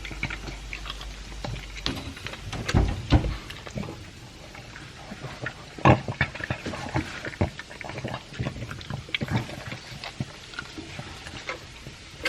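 A pug eating dry kibble mixed with beef chunks: irregular crunching, chewing and wet mouth clicks, loudest about 3 and 6 seconds in.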